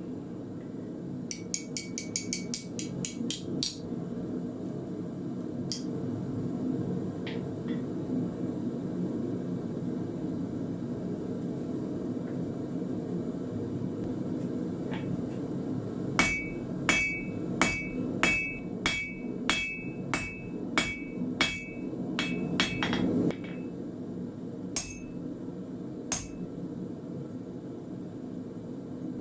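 Blacksmith's hammer striking hot iron bar on an anvil while forging nails: a quick flurry of ringing blows about a second in, a few single taps, then a steady run of about fifteen ringing blows at roughly two a second in the second half. A steady low rumble runs underneath and drops off after the last blows.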